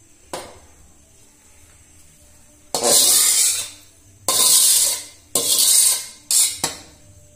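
Metal spatula scraping across a wok as stir-fried water spinach is scooped out into a bowl: a light clink about a third of a second in, then four long, loud scrapes in the second half.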